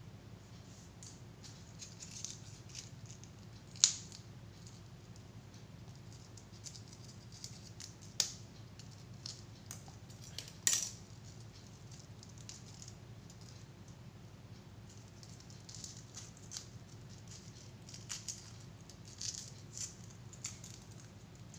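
Irregular light clicks and taps of small tools and containers being handled while making slime, with sharper clicks about 4, 8 and 11 seconds in, over a faint steady hum.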